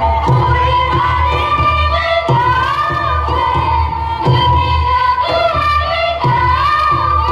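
Bodo traditional dance music: a singing melody with gliding held notes over a steady deep drum beat, about one beat a second.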